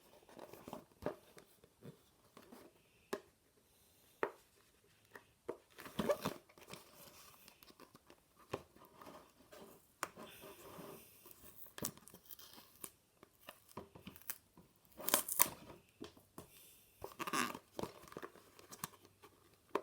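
Packing tape being picked at and peeled off a toy box: scattered short tearing rasps and crinkles, with louder bursts about six seconds in and again near fifteen and seventeen seconds.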